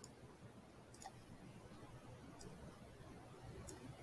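Four faint computer mouse clicks, about a second apart, over near-silent room tone.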